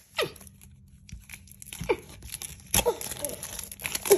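Glossy plastic wrapper of a blind-pack toy being crinkled, pulled and torn by hand, in irregular sharp crackles and rustles with the loudest tears near the end; the wrapper is stubborn and hard to rip open.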